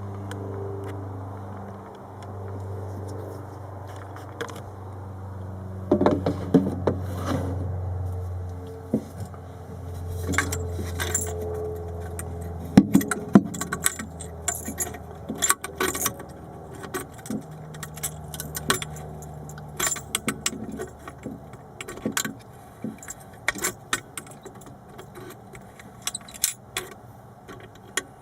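Long-nosed pliers clicking and scraping against the metal base of a broken light bulb jammed in a fridge's bulb socket: many small, sharp metallic clinks. Under them runs a steady low hum that stops about two-thirds of the way through.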